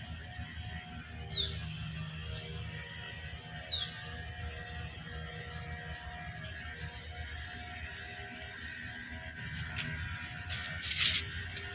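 Short, high bird chirps, one every second or two: the early ones fall in pitch, the later ones rise. A brief rustle comes near the end.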